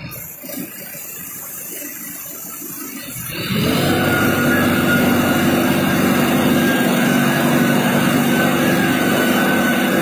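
Mobile crane's engine running, picking up sharply about three and a half seconds in and then holding a steady, loud note.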